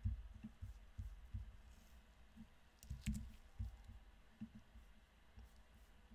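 Faint clicks and soft, irregular low thumps of a computer keyboard and mouse being worked at a desk, with one sharper click about three seconds in.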